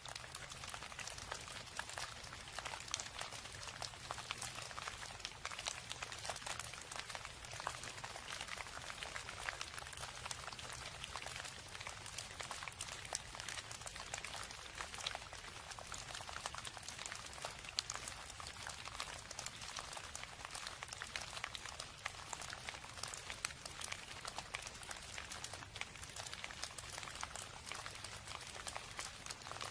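Steady rain: a dense, even patter of many small drops, with a low rumble underneath.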